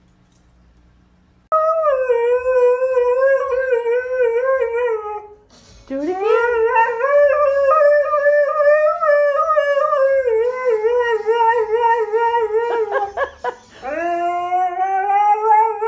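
Siberian husky howling: three long, wavering howls, the second and third sliding up from a low start, with a few short, choppy yips between them.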